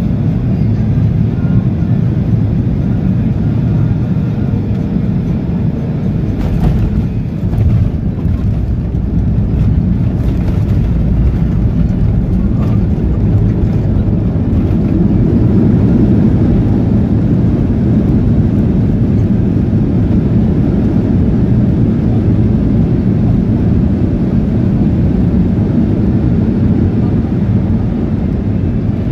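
Cabin noise of a Boeing 737-800 landing, heard beside the wing: a steady low rumble, with knocks about seven seconds in as the wheels touch down. After that comes the rumble of the roll-out with spoilers raised, which swells louder for a few seconds around the middle and then settles.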